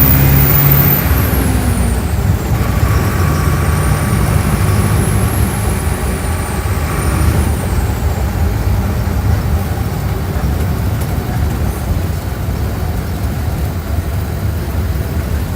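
Mercedes-Benz OF-1417 bus diesel engine under way, with a high whine that follows the engine. The engine note drops about two seconds in, as at a gear change, then pulls again until about seven seconds in. After that the engine eases off into a steady road rumble that slowly gets quieter.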